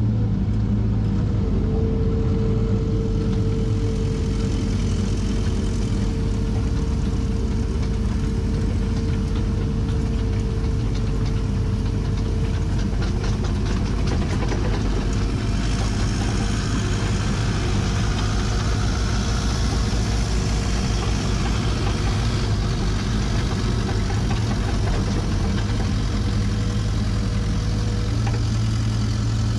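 An engine idling steadily at an even speed, with a steady higher whine above its low running note.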